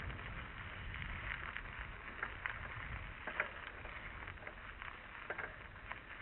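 Mountain bike rolling over a dirt forest trail, heard from a camera on the bike: a steady rush of tyre and wind noise with frequent small clicks and rattles from the bike and camera mount over the rough ground, and a couple of brief squeaks.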